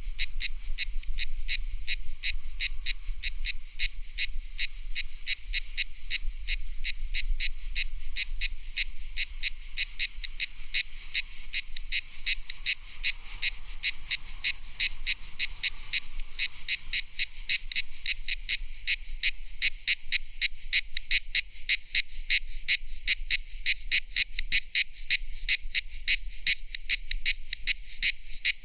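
Cicadas calling in a rhythmic, high-pitched pulsing chorus, about three pulses a second, the pulses becoming sharper and more distinct in the second half.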